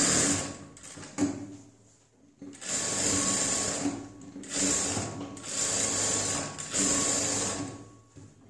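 Industrial single-needle sewing machine stitching lining onto blouse fabric. It runs in several short bursts of about a second each with brief pauses between them, and stops near the end.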